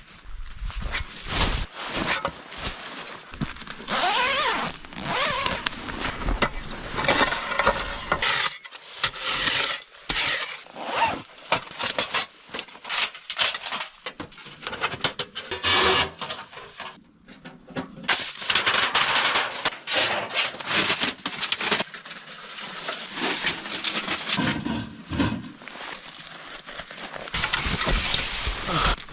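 Irregular scraping, rubbing and rustling from gear being handled, with many short clicks and a few brief squeaks.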